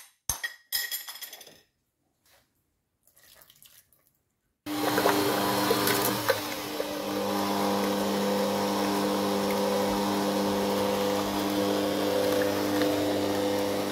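A few clinks of utensils against a bowl, then, about four and a half seconds in, an electric mixer switches on and runs steadily, mixing quark, yoghurt and sugar into a cream.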